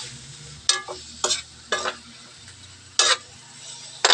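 Metal tongs scraping and clacking against a wok as pieces of fish are turned while they sauté, with a light sizzle underneath. There are about four or five sharp scrapes, spaced unevenly.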